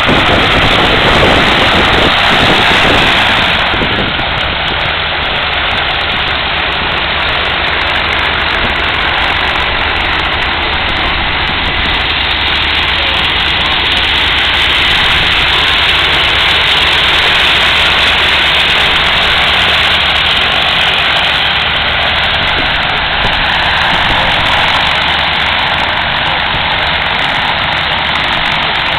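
The twin pusher engines of a Lockwood AirCam amphibian running steadily as it taxis on its float wheels. The drone is loudest in the first few seconds as the plane passes close, then settles at a steady level.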